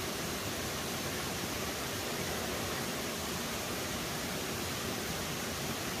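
Mountain stream water flowing over rocks: a steady, even hiss with no distinct events.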